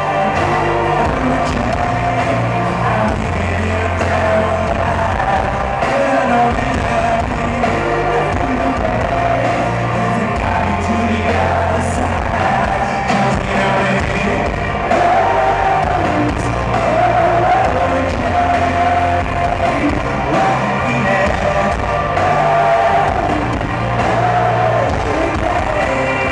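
Rock band playing live: distorted electric guitars, bass and drums under a male lead singer, heard from within the crowd in a large hall.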